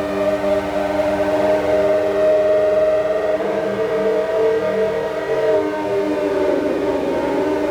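Soma Labs Lyra-8 analog drone synthesizer holding a dense, steady chord of several sustained tones with a wavering, beating texture. It has a siren-like, droning quality, and the upper tones shift slightly about halfway through.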